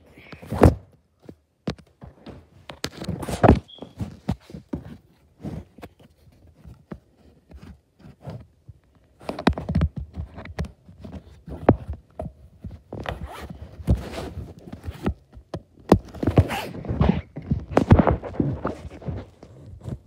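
Handling noise from a phone or camera held against the body: irregular knocks and thunks with rustling as the device rubs against clothing, in louder bursts about halfway through and near the end.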